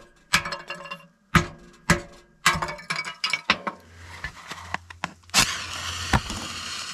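A hammer striking a blade to split kindling on a steel wood-stove top: several sharp, ringing cracks over the first three seconds or so. A steady hiss follows near the end as a flame is lit.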